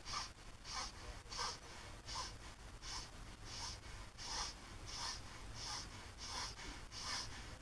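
Breath of fire: a woman's short, forceful exhales through the nose, snapping the belly in on each one, repeated in a steady rhythm of about one and a half a second.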